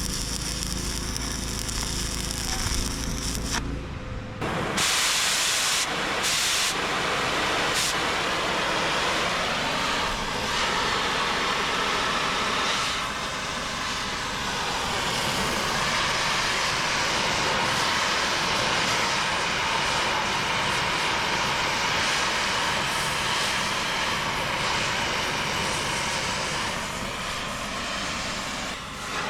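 Stick-welding arc from 3/32-inch rods on a 110-volt welder, crackling and hissing steadily as a bead is run. It breaks off about four seconds in, then is struck again and runs on unbroken.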